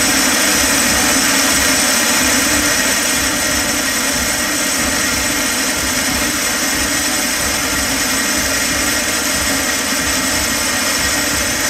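Wabeco D6000 bench lathe running steadily while a boring bar cuts the bore of a 4140 steel chuck back plate. It makes an even, unbroken whir and hiss.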